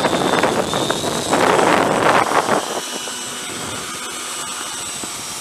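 Electric ducted fan of an FMS 70 mm F-18 model jet running, a high thin whine over a rush of air; louder for the first two or three seconds, then settling to a steadier, lower level.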